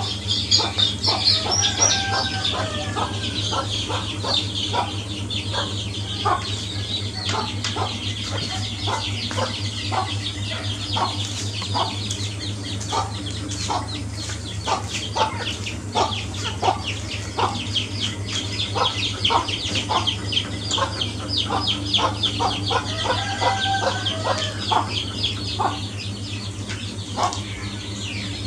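A hen pecking feed pellets from a plastic dish, a run of sharp taps, with soft clucks now and then. A steady low hum sits underneath.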